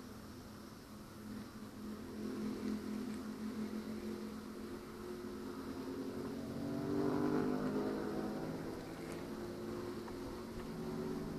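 A motor engine hums steadily, growing louder to a peak about seven seconds in, then easing off.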